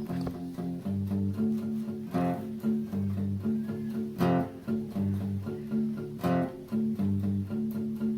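Instrumental background music: a plucked guitar playing chords in a steady rhythm, with a bass line.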